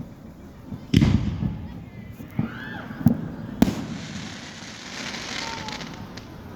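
Fireworks going off: a loud bang about a second in, then several sharper bangs with whistling glides between them, and a stretch of hissing crackle after that.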